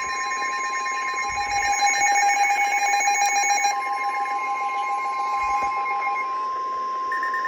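Emergency alert attention signal: a loud, steady electronic tone with a second, lower tone under it that cuts off about six seconds in. A higher beeping tone joins near the end.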